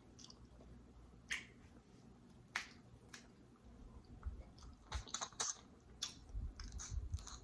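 Close-up eating sounds: scattered sharp clicks and snaps with chewing, the snaps coming thicker in the last few seconds.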